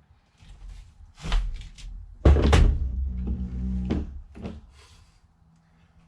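A series of about four heavy thuds and knocks as a steering wheel is pulled and struck to break it free of the steering-column splines, with its retaining nut left loosely on; the loudest thud comes about two and a half seconds in.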